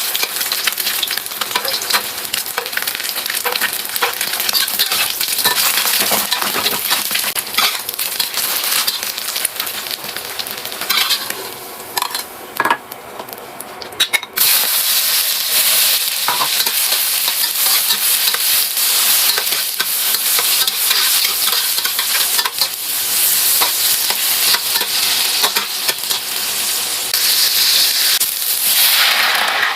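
Food frying in a hot, oily pan: a steady sizzle with quick scraping clicks of a spatula stirring it. About halfway through the sizzle drops away briefly, then comes back louder and steadier.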